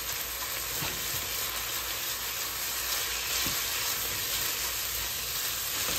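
Ground beef and dry Rice-A-Roni sizzling in a pot as the rice toasts in the meat's remaining grease, stirred with a spatula. A steady hiss with a couple of faint knocks.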